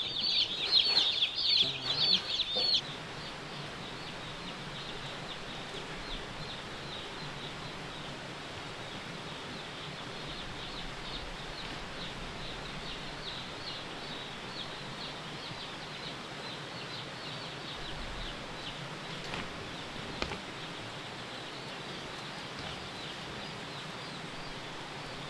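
A brood of day-old chicks peeping: loud, rapid high peeps close by for the first three seconds, then a steady chorus of fainter peeps. The chicks are chilled, and continuous peeping like this is typical of cold chicks.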